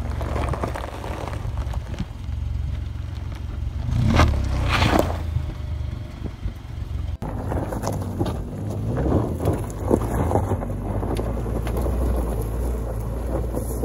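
Compact SUV driving slowly over a rocky dirt track: a steady low engine rumble with tyres crunching and scraping on loose stones and gravel. The sound changes abruptly about seven seconds in.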